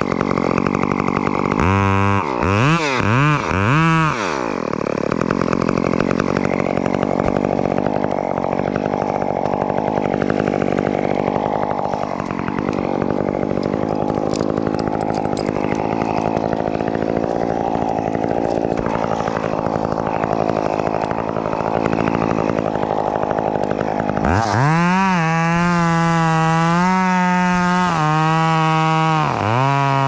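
Gasoline chainsaw revved in quick bursts, then running steadily for about twenty seconds as it cuts through birch wood, then revved up high and held there near the end.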